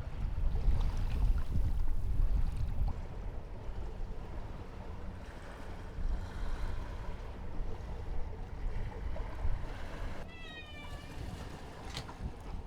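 A kitten meows once, briefly and slightly falling in pitch, about ten seconds in. Underneath is a steady low rumble of wind and water around the small sailboat, strongest at the start.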